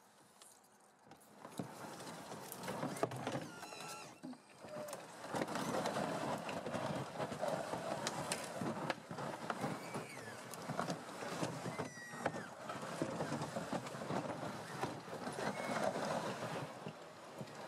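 MTT-136 rubber-tracked robotic vehicle crawling through snow and brush. Its tracks crunch over the snow while branches scrape and snap against it, with many sharp cracks; the noise starts about a second in.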